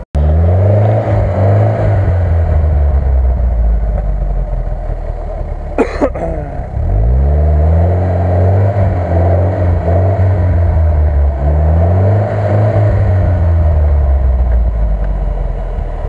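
UAZ off-roader's engine revving up and down over and over as it works through deep snowy ruts, the pitch rising and falling every few seconds. A brief sharp crack comes about six seconds in.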